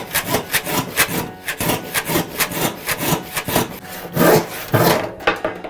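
Hand saw cutting through wood in quick back-and-forth strokes, about four a second, with a few heavier strokes near the end.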